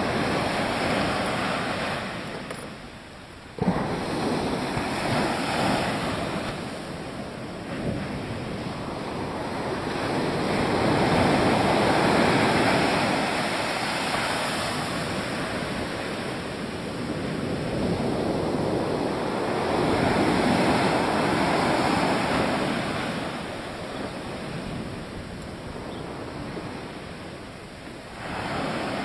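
Surf breaking and washing up a sandy beach, swelling and fading every several seconds, with wind rumbling on the microphone. The sound dips briefly about three seconds in and comes back abruptly.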